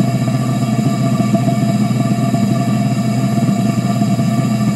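Propane-air burner in a turbine combustion chamber running steadily: a continuous loud rushing roar with a steady hum.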